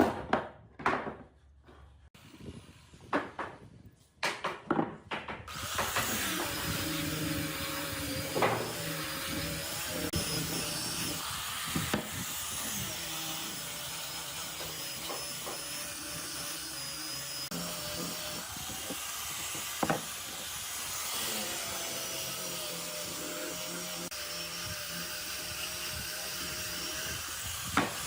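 A few knocks and clicks of wood being handled, then about five seconds in an electric power tool starts and runs steadily, its motor pitch wavering a little, with an occasional sharp click.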